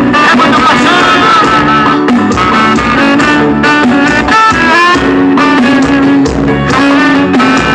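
Loud song with guitar, no singing, played through a car's trunk sound system.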